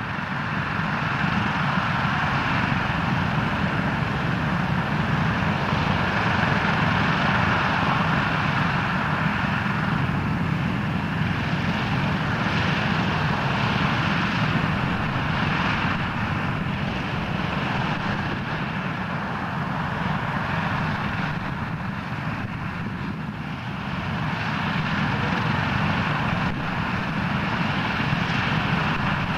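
Douglas DC-6's four Pratt & Whitney R-2800 radial piston engines running as the airliner taxis, a steady propeller drone that dips briefly about three-quarters of the way through and then builds again.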